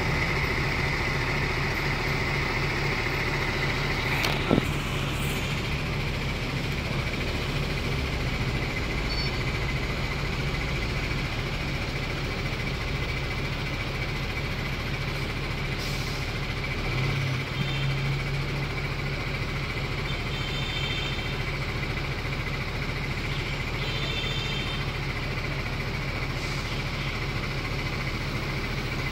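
Weichai WP6.220E50 six-cylinder diesel engine of a Yutong ZK6876H5Y coach running steadily with a low drone. A single sharp click comes about four and a half seconds in.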